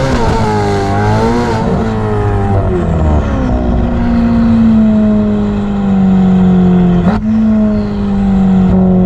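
Ferrari F8's twin-turbo V8 engine and exhaust revving up and down, then holding a steady note that slowly drops in pitch, with a sharp brief break about seven seconds in.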